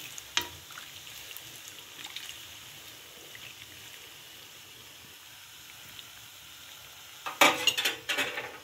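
Rings of yeast dough deep-frying in hot oil with a steady sizzle, a metal spoon basting oil over their tops and clinking lightly against the pan. A run of louder knocks and clatter comes near the end.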